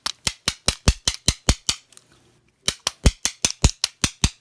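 A Sparrows bump key in a Dexter by Schlage five-pin lock being struck with a bump hammer: sharp, rapid taps at about five a second. They come in two runs, with a short pause about two seconds in, while the lock has not yet opened.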